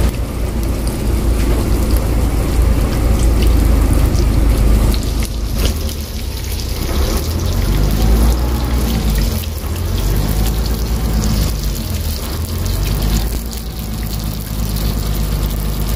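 Masala-coated karimeen (pearl spot) shallow-frying in hot oil in a pan: a steady sizzle over a low rumble.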